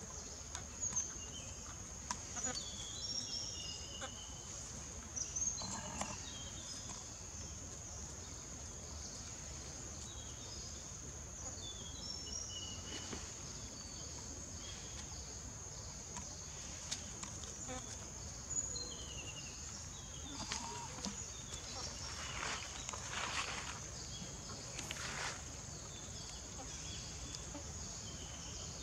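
Steady high-pitched insect drone, with short high chirps or squeaks scattered throughout and a few louder scuffling noises a little over twenty seconds in.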